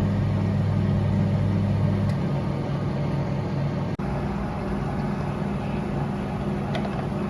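LG microwave oven with a new 2M213-09B 700 W magnetron running a cooking cycle: a steady hum, its deeper part dropping back about two seconds in. This is the ordinary sound of the oven working normally, the magnetron replacement having cured the fault.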